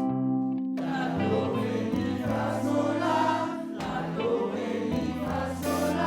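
Music: a held chord opens, then a group of voices sings together over instrumental accompaniment.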